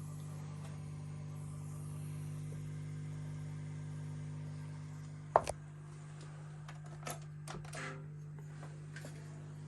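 Steady mains hum from a valve amplifier setup, a Siemens Klangfilm 6 S ELA 2524 pair, idling with no signal. One sharp click about halfway through and a few softer clicks near the end.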